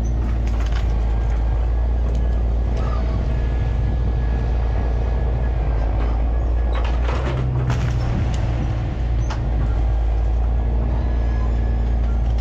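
Diesel engine of a log picker truck running steadily as its loader works a root wad out of a pile, with a few sharp knocks from the grapple and wood. The engine note changes briefly about seven seconds in.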